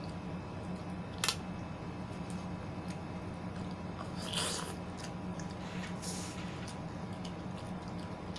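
Biting and chewing juicy fruit chunks, with a short wet crunching burst about four seconds in and a sharp click a little after one second, over a steady low hum.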